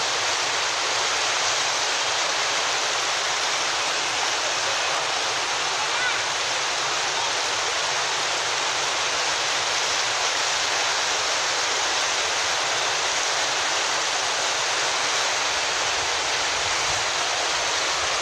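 Steady, loud rushing and churning of muddy floodwater surging down a canal swollen by heavy rain.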